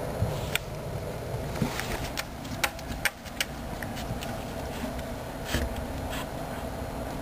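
A few dull thumps of a cat's tail whacking against a wall, among irregular sharp taps and clicks, over a steady background noise.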